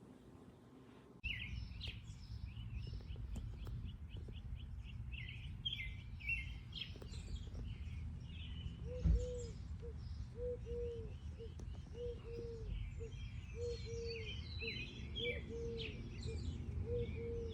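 Several birds chirping outdoors: quick high chirps and trills, and from about halfway a low call repeated every half second or so, over a steady low rumble. A single thump about nine seconds in.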